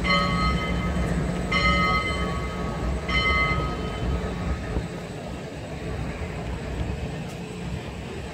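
Union Pacific Big Boy 4014 steam locomotive sounding three short, evenly spaced signals, each a chord of several steady tones, over a low rumble that drops away about five seconds in.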